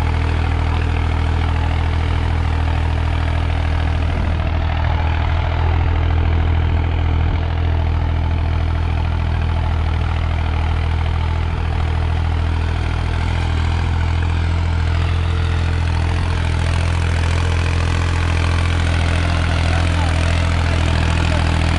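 Turbocharged diesel engine of a New Holland 3630 Plus tractor running steadily under load as it pulls a disc harrow through ploughed soil.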